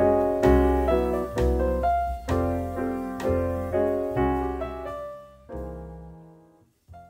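Background music: a gentle piano tune with low bass notes in a steady pulse, dying away near the end.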